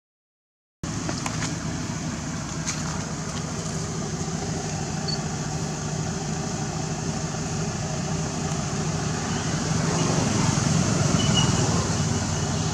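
Silence, then about a second in a steady outdoor background hiss and low rumble starts, like distant traffic, with a few faint clicks and brief faint high chirps.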